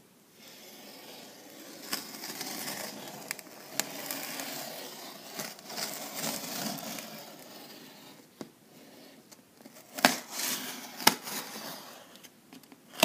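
A blade cutting through the packing tape and cardboard of a large TV box: an uneven scraping and tearing cut lasting several seconds, then two sharp clicks about a second apart near the end.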